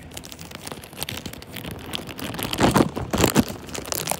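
Packaging being handled: a plastic wrapper and paper inserts rustling and crinkling, with small knocks. The sound gets louder and denser for about a second, starting a little past the middle.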